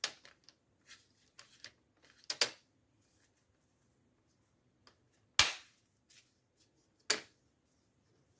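Plastic screen bezel of a laptop being pressed into place, its clips snapping in with a series of sharp clicks, the loudest about five and a half seconds in.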